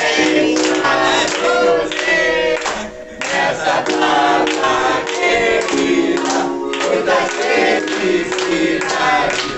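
Music with singing voices, several voices together like a choir, with held sung notes over the accompaniment.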